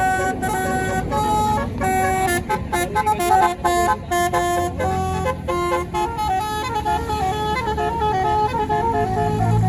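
Tour bus's "basuri" telolet horn, a multi-tone musical air horn, playing a tune of stepped notes, with a run of short quick notes a few seconds in. A low rumble runs underneath.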